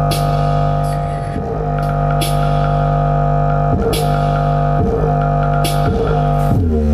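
Bass-heavy electronic music played through the Panasonic SC-HT480GW-K 4.1 home theater system's subwoofer and speakers in a bass test. A deep, steady bass drone runs under repeated falling bass glides and occasional cymbal hits.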